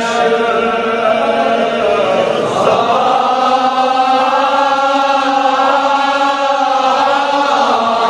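A man's voice chanting a Kashmiri marsiya, a Shia mourning elegy, in long held notes with slow glides in pitch.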